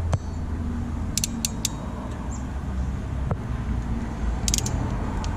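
Hand crimping tool closing on a wire connector, heard as a few quick sharp metallic clicks about a second in and again near the end, over a steady low hum.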